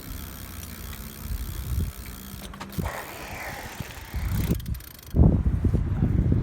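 A bicycle being ridden, with its mechanical running noise. From about five seconds in, wind buffets the microphone with a sudden low rumble.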